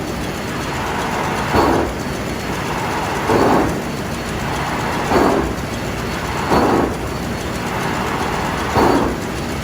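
Ship's main engine turbocharger coughing (surging) over the steady engine-room noise: a short, loud cough about every one and a half to two seconds, five times.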